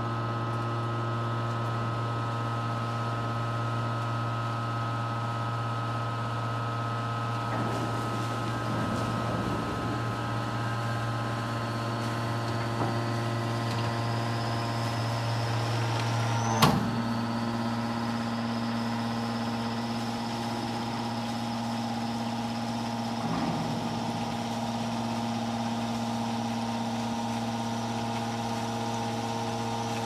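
Hydraulic power unit of a scrap metal baler running: the electric motor and hydraulic pump give a steady hum. About halfway through a high whine rises slowly in pitch, then a single sharp clunk comes, typical of a solenoid valve switching, and the hum's tone changes after it.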